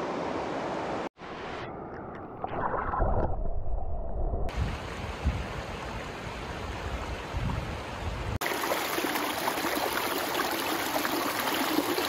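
Shallow mountain river water running and splashing over rocks close to the microphone. The sound cuts out for an instant about a second in and is muffled for a couple of seconds after that, before turning full and bright again.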